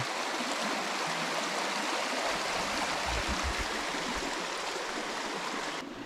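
Shallow forest stream running over rocks: a steady rush of water, dropping away just before the end.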